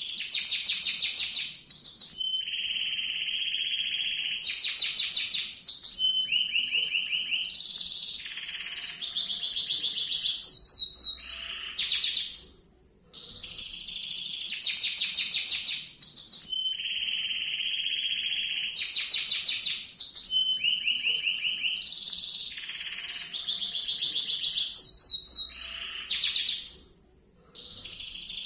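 Domestic canary singing a long rolling song: one sustained trill of rapid repeated notes after another, some high and some lower and held. The song breaks off briefly about twelve seconds in and then starts the same series of trills again.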